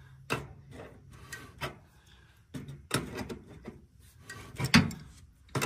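Wrenches on the brass quick-connect line set fitting of a MrCool heat pump's outdoor unit: irregular metal clicks and scrapes as the nut is tightened, with one louder clack near the end. Tightening this fitting down is what opens the pre-charged line set's internal valve.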